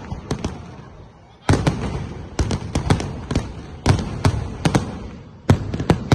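Fireworks going off: volleys of sharp cracking bangs in quick succession, coming in several bursts, each dying away before the next volley starts.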